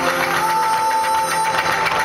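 Live flamenco performance: rapid percussive tapping runs throughout, and a voice holds one long note from about half a second in.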